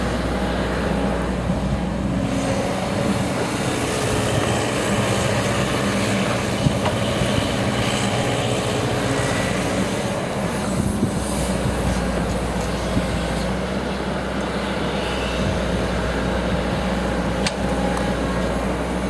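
Caterpillar 312C hydraulic excavator working: its diesel engine runs steadily under hydraulic load as the bucket digs and swings spoil, with a few sharp knocks from the bucket and soil.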